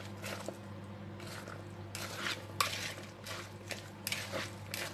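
Chopped salad being stirred and tossed in a big mixing bowl: irregular scraping and rustling with scattered clinks of the utensil against the bowl, over a faint steady low hum.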